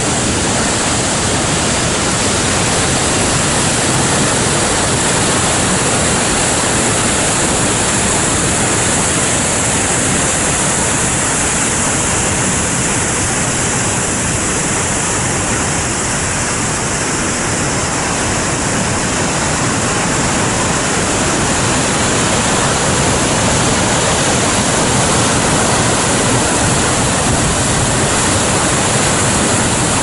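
Lady Evelyn Falls, a broad curtain waterfall on the Kakisa River, giving a steady, loud rush of falling and churning water.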